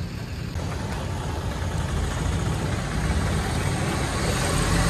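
Street traffic: auto-rickshaw engines running and passing on a wet road, a steady rumble that grows gradually louder.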